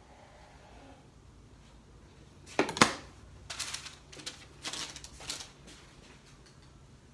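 Two sharp clacks of a chef's knife against a wooden cutting board about two and a half seconds in, followed by a couple of seconds of rustling and crinkling as a sheet of paper is handled to wrap the cut burrito.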